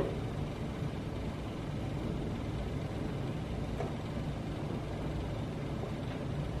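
Steady low room hum, with two faint knocks of a chef's knife cutting onion on a plastic cutting board.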